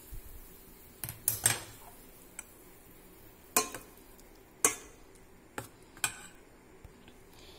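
Steel spoon clinking against the side of a steel bowl while stirring curd rice: a handful of sharp, irregular clicks, loudest about one and a half seconds in and again near the middle.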